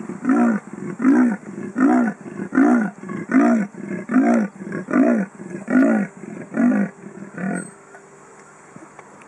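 Male leopard giving its sawing territorial and mating call: a series of about ten rasping grunts, roughly one every 0.8 seconds, like a saw drawn back and forth. The calls grow fainter and stop near the end, leaving a faint low hum.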